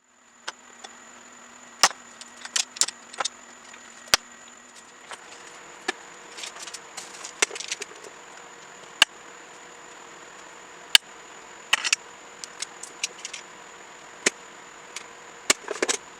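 Irregular clicks and clinks of hand tools and small metal parts being handled, over a steady hiss.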